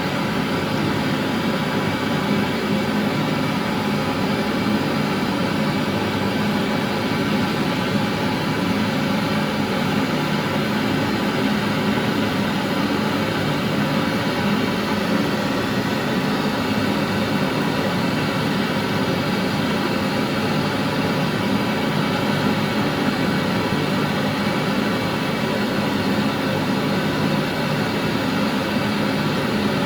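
Steady, even machine noise with a low hum and hiss, unchanging throughout.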